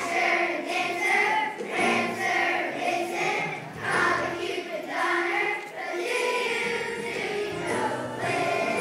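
Children's choir singing a school song.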